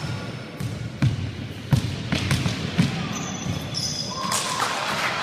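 Basketball dribbled on a wooden gym floor: a run of bounces echoing in a large sports hall.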